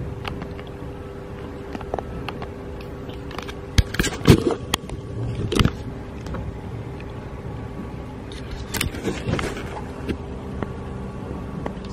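Steady room hum with two faint held tones, broken by knocks and rustles of a handheld camera being moved, loudest in a cluster about four to six seconds in and again around nine seconds in.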